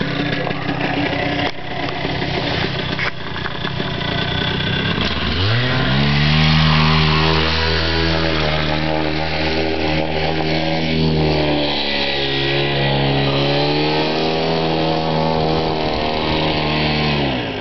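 Paramotor engine and propeller, at first running rough at low throttle, then opened up about five seconds in: the pitch climbs and holds steady at high power, as for a takeoff run. Near the end the throttle drops briefly and comes back up.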